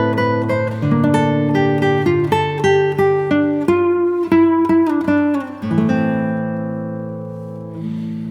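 Background music: plucked acoustic guitar picking a melody over held bass notes, ending on a chord that rings and fades.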